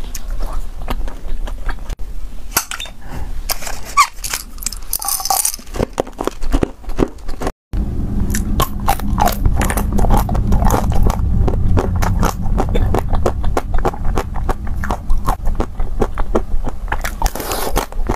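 Close-miked eating sounds: chewing a gummy candy, then after a cut, biting and chewing a chocolate-coated ice-cream bar, with many small crunches and crackles of the chocolate shell.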